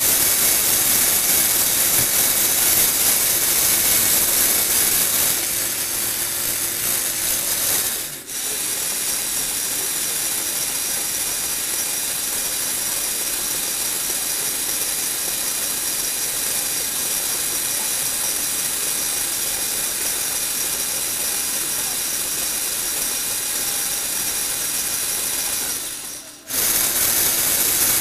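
Small electric motor and plastic gears of a 1/20 RC Ferrari FXX toy car whirring steadily as its wheels spin on Lego Technic rollers. The whir cuts out briefly twice, about a quarter of the way in and near the end, and comes back each time.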